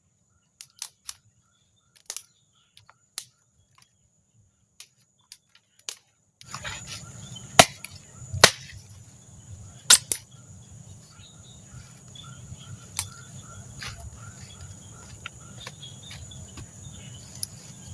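A series of sharp clicks and knocks, a handful of them loud, over a steady high-pitched insect chirring that comes in about six seconds in.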